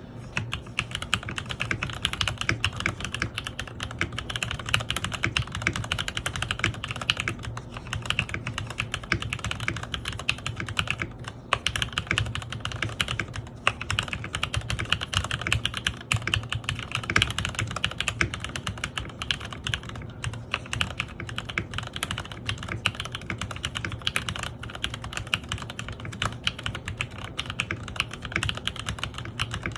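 KC87 mechanical keyboard with Gateron Pro Yellow (milky-housing) linear switches, typed on fast and fairly hard: a dense, steady stream of clacking keystrokes with a brief pause about eleven seconds in.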